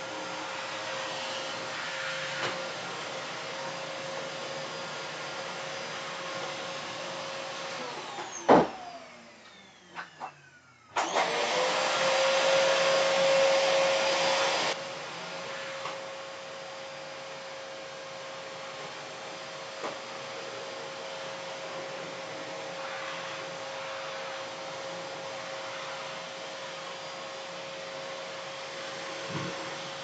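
Household vacuum cleaner running steadily. About eight seconds in it is switched off with a click and its motor winds down, with two knocks in the short pause. About three seconds later it is switched back on and runs louder for a few seconds before settling to its steady sound.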